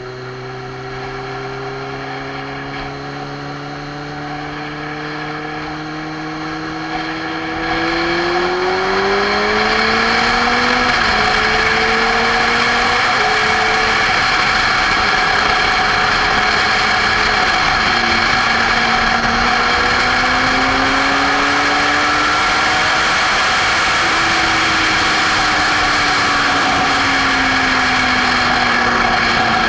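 Motorcycle engine accelerating, its pitch rising and then dropping as it changes gear, with a rushing wind and road noise on the microphone that grows much louder about eight seconds in as speed builds.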